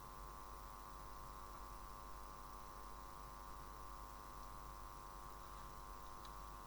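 Steady electrical hum with a faint hiss, and a faint tick near the end.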